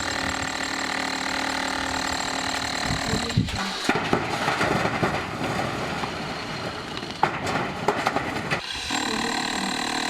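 Construction work with a Hilti power tool. A motor runs with a steady tone, then for about five seconds the sound turns rough and noisy with sharp knocks, and the steady tone comes back near the end.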